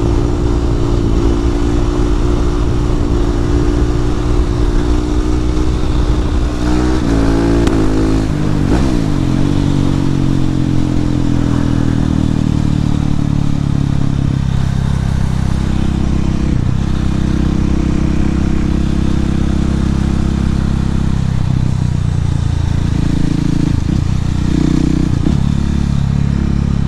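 Husqvarna 701 supermoto's single-cylinder engine running at steady high revs, then revs falling about seven to nine seconds in as the bike slows, settling into steady lower revs for the rest.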